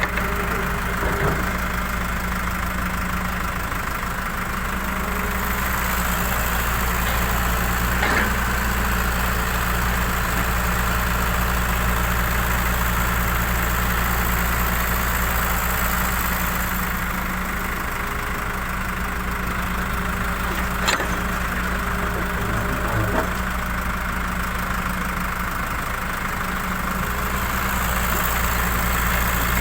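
Diesel engine running steadily at a constant speed as a low hum, with a couple of faint clicks.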